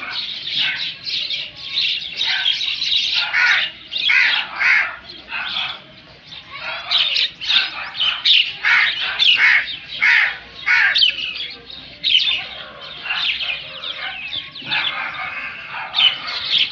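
A flock of crows cawing, many short harsh calls overlapping in a near-continuous chorus.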